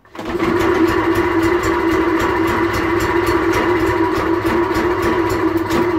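Warm Vire two-stroke inboard engine pull-started by its cord, catching at once and running steadily at an even speed. It cuts out just before the end.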